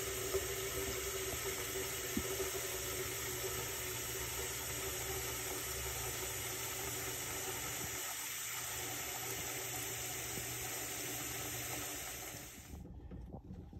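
Kitchen tap running a steady stream into a part-filled metal saucepan, filling it with water; the flow cuts off abruptly about a second before the end.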